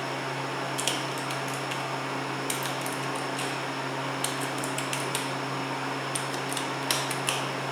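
Steady hum of an elevator cab's ventilation fan, with a scattering of light clicks and clinks.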